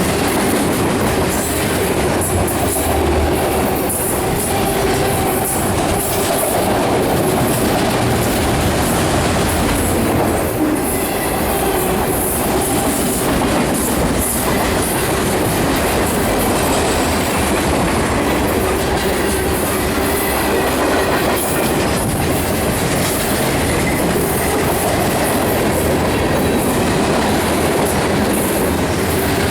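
CSX freight train rolling steadily past at close range, its wheels clicking over the rail joints.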